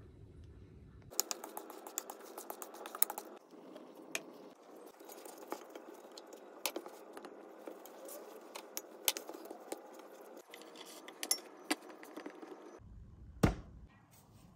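Hands mixing and kneading bread dough in a stainless steel bowl, with scattered light clicks and taps against the metal. A single heavier thump near the end.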